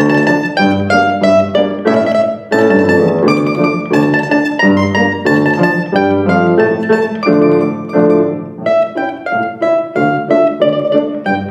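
A small tamburica plucked in a melodic line, accompanied by a grand piano playing chords beneath it.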